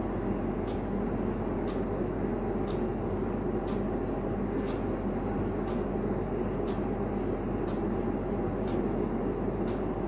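Steady background hum and rushing noise, like a running fan or air conditioner, with a faint high tick about once a second.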